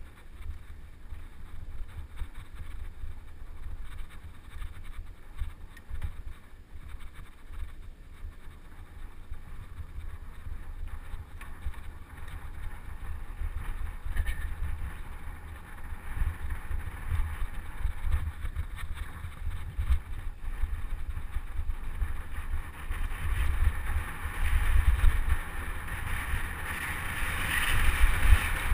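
Wind buffeting the microphone of a camera riding on a moving mountain bike: a steady low rumble with a rushing hiss that grows louder in the last few seconds.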